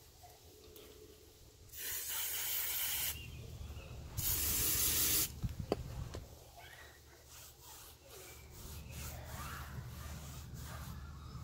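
Tire dressing sprayed from an aerosol can onto a foam applicator pad in two steady hisses of about a second each, with a sharp click just after the second. Near the end comes a faint rubbing as the pad is wiped over the tire's rubber sidewall.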